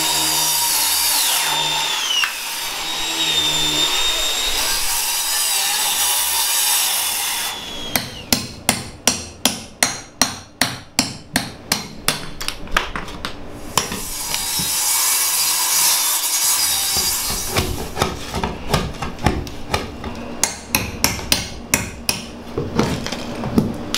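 Makita corded circular saw cutting into the plywood subfloor, its whine dropping under load, for the first seven or so seconds. Then a hammer strikes a chisel about three times a second to break the flooring out. After a second short stretch of sawing, a run of quicker, uneven hammer blows follows near the end.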